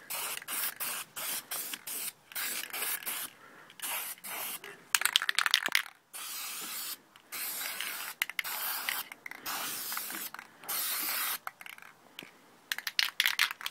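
Aerosol spray-paint can spraying in repeated bursts of hiss, some short and some a second or more long, with brief gaps between them.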